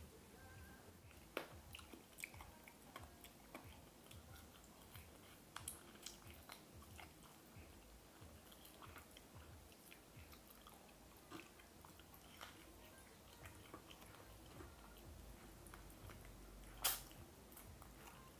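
Faint close-up eating sounds of deep-fried tilapia picked by hand: chewing with scattered small clicks and crunches, and one louder click near the end.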